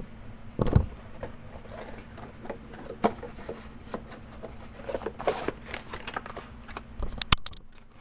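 Handling noises: scattered small clicks, knocks and rustles of parts and packaging being handled, over a faint steady hum. A louder thump comes about a second in and a sharp click just after seven seconds.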